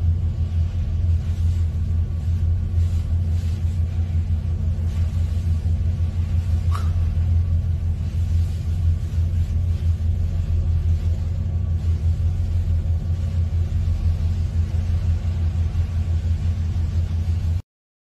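A heavy vehicle's engine idling with a steady low rumble, heard from inside its cab. It cuts off abruptly near the end.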